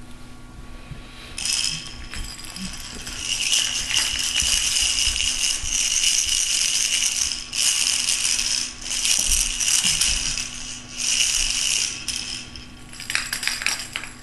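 A toy rattle shaken in several long bursts of rattling, followed by a few short clicks near the end.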